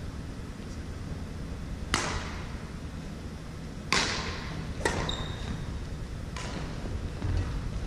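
Badminton rackets striking a shuttlecock in a rally: four sharp hits, the first about two seconds in and the other three over the next two and a half seconds, the last one fainter. Each hit leaves a short echo in the gym hall.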